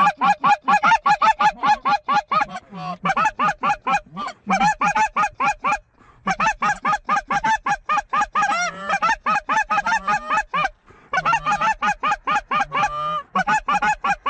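Goose calls blown by hunters, a fast steady run of loud honks and clucks, about five or six a second, with short pauses for breath. The calling works an incoming flock of geese toward the decoys.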